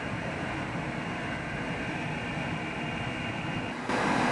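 CNC oscillating knife cutting machine running with a steady mechanical whooshing noise as its tool head works over a door mat. Just before the end, the noise jumps suddenly louder and brighter.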